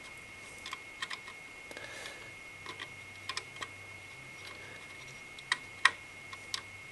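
Small clicks and taps of a Silverstone Heligon HE01 cooler's metal mounting rail being fitted over the mounting bolts by hand, scattered and irregular, the loudest about a second before the end. A faint steady high whine sits underneath.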